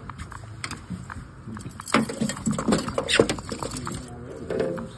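Kokanee flopping in a landing net on a boat deck: a flurry of quick slapping taps and knocks, loudest about two to three and a half seconds in.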